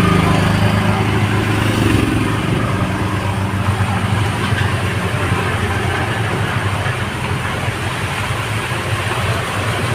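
Rain falling with a steady hiss. Under it is the low hum of an engine running, which fades during the first few seconds.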